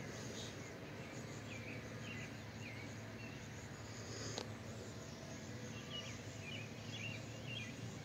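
Short, scattered bird chirps in two loose runs over steady outdoor background noise and a low hum, with a single sharp click about four and a half seconds in.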